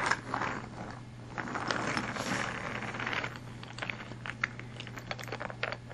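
A toy train engine being handled by hand: a stretch of rustling and scraping, then a run of light clicks and knocks in the second half.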